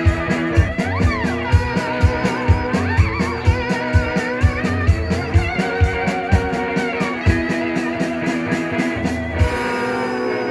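Rock band playing an instrumental passage live: guitar over a steady beat of kick-drum thumps. About nine seconds in the drums stop, leaving a held chord that slides down in pitch.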